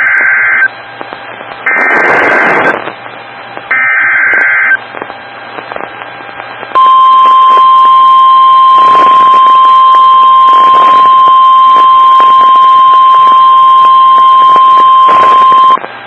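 NOAA Weather Radio Emergency Alert System activation: three one-second bursts of SAME header data tones, about a second apart, then after a short gap the steady 1050 Hz warning alarm tone held for about nine seconds, announcing a special marine warning.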